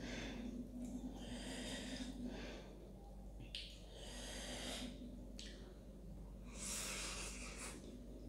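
Hissing breaths in and out through the mouth, about four of them, while eating double-spicy ramen noodles: the sound of someone cooling a mouth burning from the chilli.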